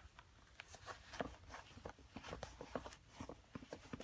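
Faint rustling and light clicks of hands tucking the laces into a leather sneaker while putting it on, in a scatter of short irregular handling noises.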